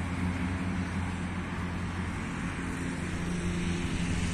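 Steady hum of road traffic from a busy road close by, with a low engine drone under it.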